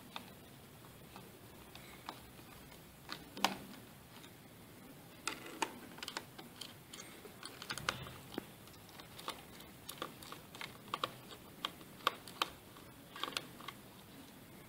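Small screwdriver turning out the tiny screws that hold a laptop's Wi-Fi card. It makes faint, irregular clicks and ticks of metal on metal, coming more often after the first few seconds.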